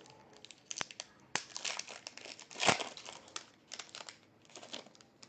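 Shiny foil wrapper of a trading-card pack being torn open and crinkled in the hands, with irregular sharp crackles, the loudest a little past the middle.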